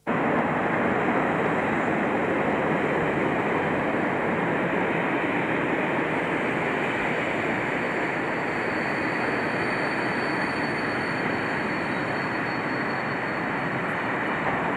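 British Rail Class 47 diesel-electric locomotive hauling a train of loaded oil tank wagons past at close range: a loud, steady rumble of engine and wheels on the rails, starting abruptly.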